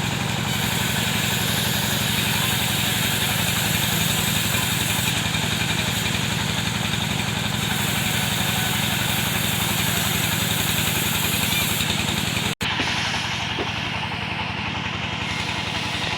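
Engine of a wood saw running steadily at a constant speed, with a fast, even firing beat. The sound drops out for an instant about twelve and a half seconds in.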